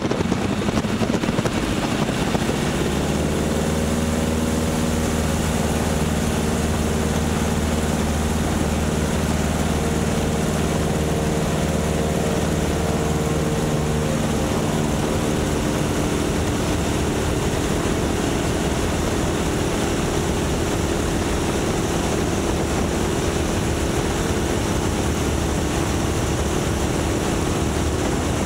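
Stearman biplane's radial engine and propeller at takeoff power, a loud steady drone mixed with heavy wind noise in the open cockpit. The engine's tone changes and settles a little lower about halfway through.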